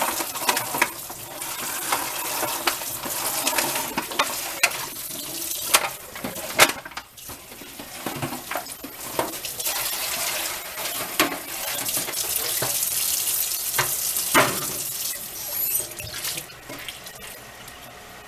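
Kitchen tap running into a sink while a metal baking pan is rinsed out, with scattered knocks and clatters of the pan against the sink; the water stops near the end.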